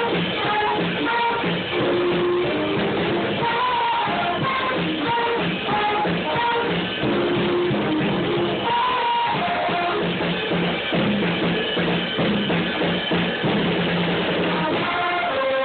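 A school band playing a piece together: flute and other wind instruments holding melodic notes over drums, at a steady level without a break.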